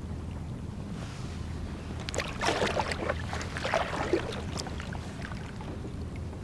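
Steady low wind rumble on the camera's microphone aboard a sit-on-top kayak, with a short flurry of small clicks and knocks about two seconds in.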